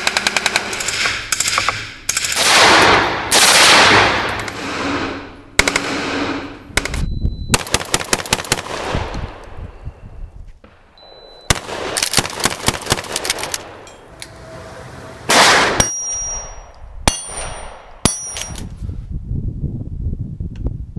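Gunfire in a series of loud bursts, some of them rapid strings of shots, separated by short pauses.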